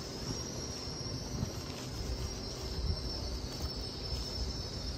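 Railway station platform ambience: a steady high-pitched whine over a low, uneven rumble.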